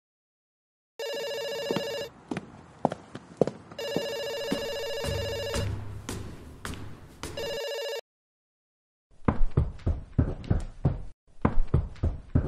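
Telephone ringing three times, the middle ring the longest, with light clicks and knocks between the rings. From about nine seconds in, quick footsteps, as of someone going down stairs.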